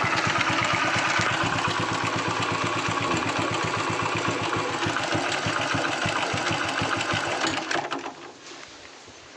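Motorcycle engine idling with a steady, even beat while the rear drum brake is tested, with no tak-tak knock from the brake now that its loose brake-shoe nut has been packed with washers. The engine sound drops away near the end.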